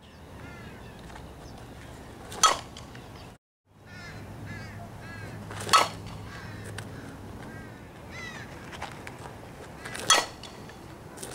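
Fastpitch softball bat hitting tossed softballs three times, each a sharp crack with a short ring, a few seconds apart. Birds chirp in the background, and the sound drops out briefly just after the first hit.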